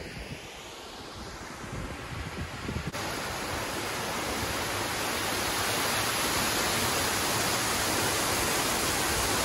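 Water rushing down a stone stepped overflow channel, a steady dense rush that starts about three seconds in and grows gradually louder. Before it, lighter wind noise buffets the microphone.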